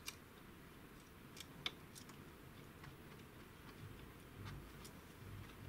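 Faint, scattered small clicks and ticks of an M5 bolt and washer being fiddled into place and started by hand into the laser engraver's frame, over near-silent room tone, with a few soft low bumps in the second half.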